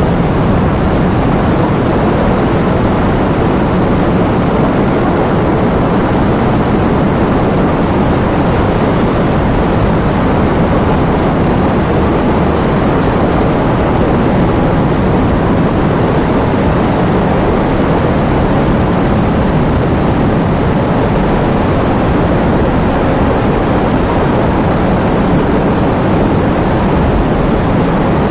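Heavy rain and wind: a steady, dense wash of noise, strongest in the low and middle range, without breaks or separate drops standing out.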